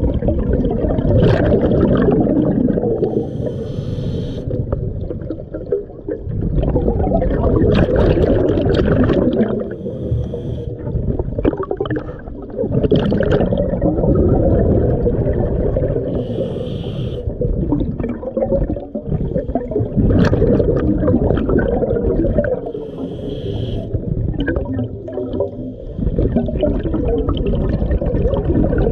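Scuba diver breathing through a regulator underwater: a short hiss on each inhale, then a long, loud gush of exhaled bubbles, repeating about every six seconds.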